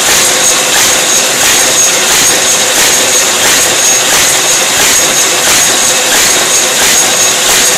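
Paper-feeding machine running steadily, with a steady high whine and a regular beat of about two strokes a second.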